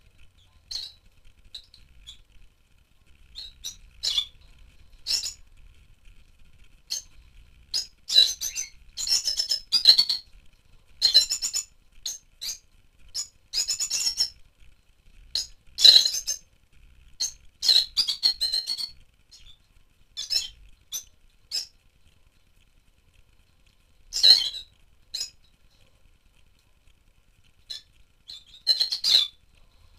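A flock of rosy-faced lovebirds calling: short, high-pitched chirps and squawks in busy flurries, with a few quieter spells between them.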